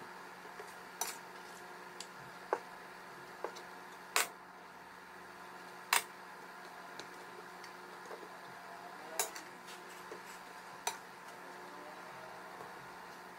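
Frosting spatula clicking and tapping against a cutting board while cream is spread on a cake, the board turned by hand; about eight sharp, scattered clicks over a steady low hum.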